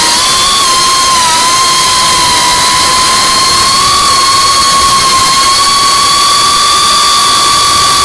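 FPV quadcopter's electric motors and propellers whining at a high, near-steady pitch that wavers only slightly with the throttle, over a hiss of rushing air.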